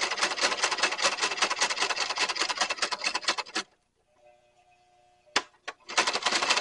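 Leather-stitching sewing machine running at speed, its needle striking in a fast, even rhythm. It stops about three and a half seconds in, gives two single clicks, and starts stitching again near the end.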